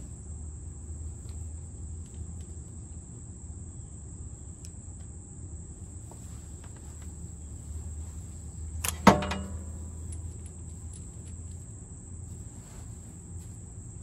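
Steady high-pitched drone of insects chirring in the summer heat, with a single sharp metallic clank about nine seconds in that rings briefly.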